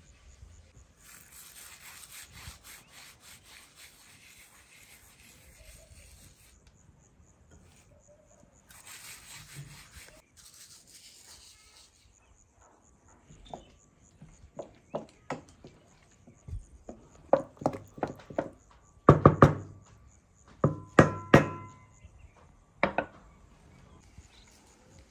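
Hands rubbing together, crumbling seasoning into a mixing bowl, in two scratchy stretches. After that comes a run of sharp knocks and thuds, loudest in the last third.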